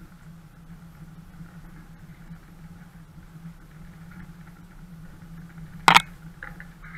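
Off-road 4x4's engine running steadily at low speed as it crawls along a rough lane. A single sharp knock comes near the end.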